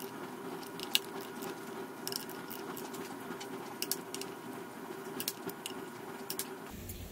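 Ratchet of a click-type torque wrench clicking in short runs as small bolts are tightened to 10 N·m, over a steady low background hum.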